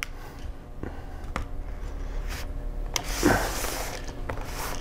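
Light clicks and taps of hands handling an opened laptop's plastic chassis and internals, with a brief rustle about three seconds in.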